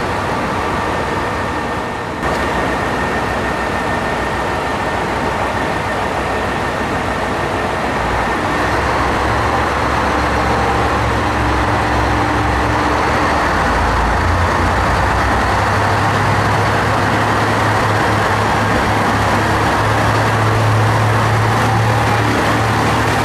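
Kiya 141 series diesel track-inspection railcar pulling out, its diesel engine throttling up. A low engine drone comes in about eight seconds in and builds, stepping up in pitch, over steady rolling and station noise.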